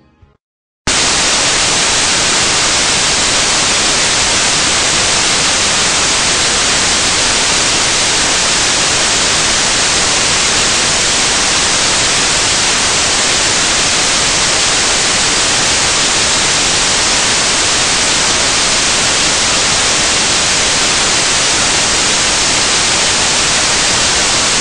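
Loud, steady hiss of static, like white noise. It starts abruptly about a second in and holds at an even level.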